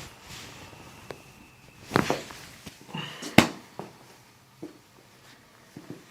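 Joints cracking under a chiropractic spinal adjustment: two sharp pops about two and three and a half seconds in, the second the loudest, with fainter clicks around them and a thin squeak just before each.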